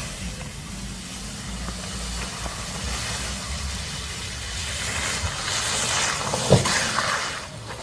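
Car driving on snow, a steady hiss of engine and tyre noise under a low rumble. The noise swells in the last few seconds, with a sharp knock about six and a half seconds in.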